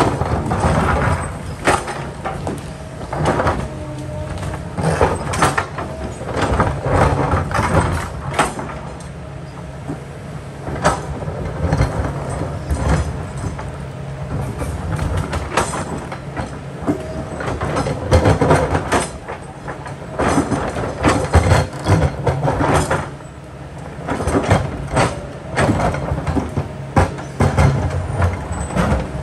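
Kobelco hydraulic excavator working rock. The diesel engine runs steadily under load while the steel bucket scrapes and grinds against large rocks in irregular bursts every second or two.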